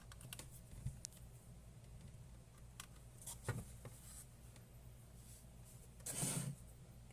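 Small clicks and taps of parts and wires being handled on a workbench, scattered through the first four seconds, then a brief louder rustle about six seconds in, over a faint steady low hum.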